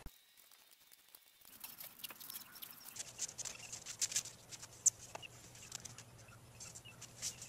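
Hands working blue masking tape and foam insulation board: faint scratchy rustling with many small clicks and ticks, starting about a second and a half in. A faint steady hum joins about halfway through.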